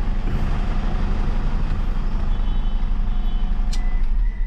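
Toyota Fortuner turbo-diesel engine idling steadily, with an even, rapid pulse; its intermittent fuel knock is not showing at this moment. A sharp click comes near the end.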